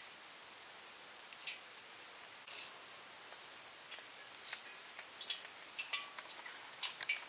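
Faint patter of coarse salt sprinkled onto skinned snake meat on a steel tray, then fingers rubbing it into the meat, with light scattered ticks that grow more frequent near the end.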